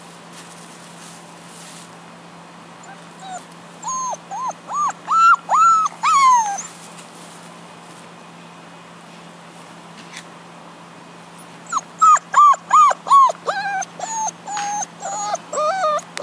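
Lurcher puppy yipping and whining in play: a quick run of short, high, arching yips about four seconds in, then a second, longer run from about twelve seconds on.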